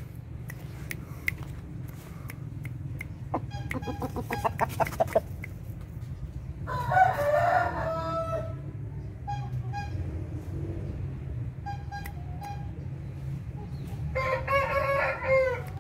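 Chickens calling: a rooster crows about seven seconds in and again near the end, with a quick run of clucks around four to five seconds in and a few short clucks in between. A steady low hum runs underneath.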